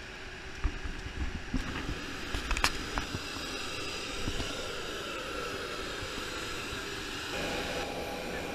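Steady airport apron noise: the whine and rumble of aircraft and ground vehicles, with several steady high tones and a tone that slowly falls in pitch through the middle. A few sharp knocks stand out, the clearest about two and a half seconds in.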